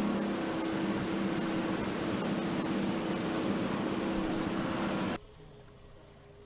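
Fishing boat's engine running under way, a steady low hum under rushing wind and water noise. It cuts off suddenly about five seconds in, leaving a much quieter background with a faint steady tone.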